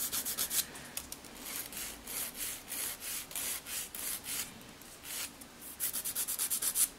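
Hand nail file rasping over the edge of an artificial full-cover nail tip in repeated short strokes, with a brief pause about two-thirds through and then a quick run of strokes near the end.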